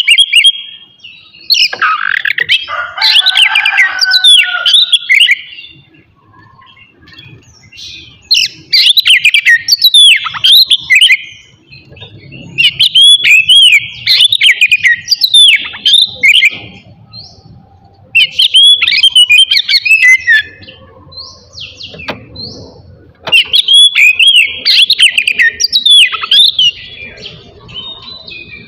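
Oriental magpie-robin (kacer) singing loud, rapid phrases of varied whistles and trills. The song comes in about five bursts, separated by short pauses.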